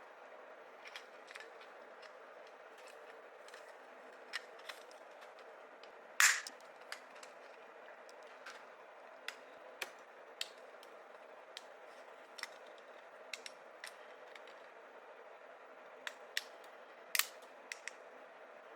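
Irregular small clicks and knocks of hard plastic parts being handled and fitted together, with two louder snaps, one about a third of the way in and one near the end, over a steady low hum.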